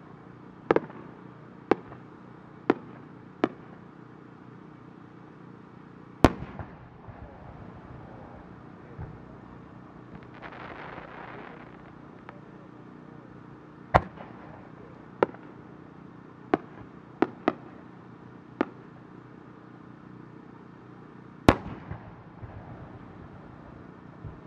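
Aerial firework shells bursting: about a dozen sharp booms at irregular intervals, each with a short echo, the three loudest about six seconds in, fourteen seconds in and near the end. A soft rushing hiss lasts about two seconds midway.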